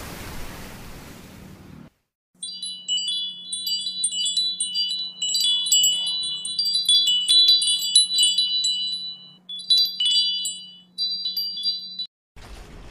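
A twinkling chime sound effect: many bright, high tinkles in quick succession over a faint low steady hum, lasting about ten seconds and cutting off abruptly. Before it, about two seconds of wind noise on the microphone end suddenly.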